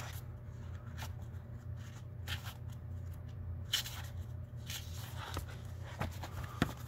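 Pages of a paperback book being leafed through by hand: a series of short paper rustles and swishes.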